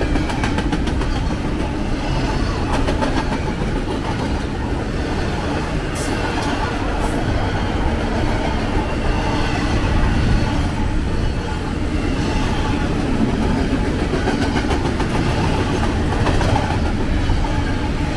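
BNSF double-stack intermodal freight train rolling past, its well cars' steel wheels making a steady noise on the rails with scattered clicks.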